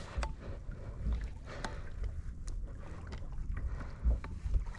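Wind buffeting the microphone and water against a kayak's hull, with a few scattered light clicks.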